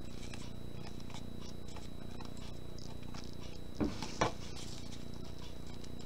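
Metal tweezers picking apart a dry, furry owl pellet on a paper plate: faint scratching and light ticks, with two louder taps about four seconds in, over a steady low hum.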